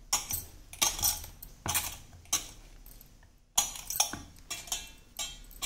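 Irregular metallic clinks and knocks as wheat-flour dough is kneaded by hand in a stainless steel bowl: bangles on the wrist clinking and the bowl being knocked. There are about nine, with a pause of about a second near the middle.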